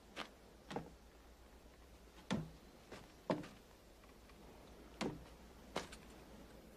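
Footsteps and knocks on wood: about seven sharp, unevenly spaced taps, over a faint low hum.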